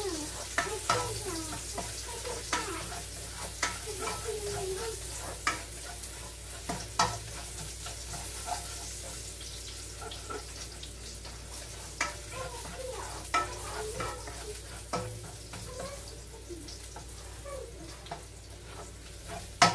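Food sizzling in oil in a nonstick frying pan while a spoon stirs it, scraping and knocking against the pan with irregular sharp clicks about once a second.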